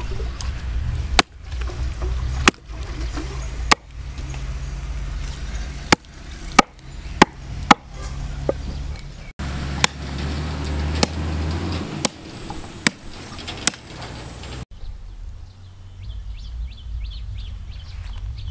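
Hatchet blade chopping into an animal's hoofed foot on a wooden chopping block: a string of sharp single chops, roughly one a second. The chopping stops a few seconds before the end, leaving a quieter background with faint repeated high chirps.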